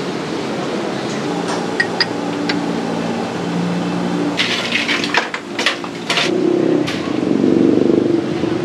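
Food-stall kitchen noise: a steady hiss, with a few sharp clinks early on and a quick run of clinks and rattles of metal and crockery in the middle.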